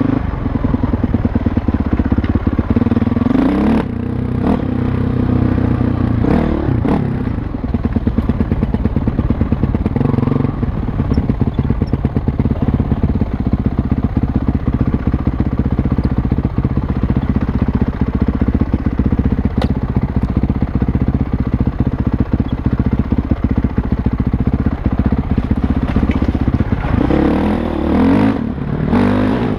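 Dirt bike engine running as the bike is ridden along a trail, the revs dipping and rising a few seconds in, again around seven seconds, and near the end.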